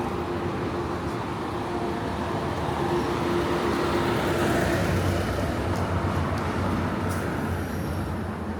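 Street traffic: a motor vehicle running close by with a steady hum, growing louder to a peak about four to six seconds in, then easing off slightly.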